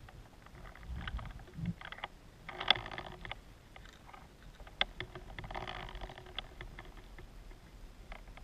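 Underwater sound of a spearfisher diving over a rocky seabed, picked up by a camera underwater: scattered sharp clicks, the loudest nearly three seconds in and again near five seconds, with two brief rushing swells.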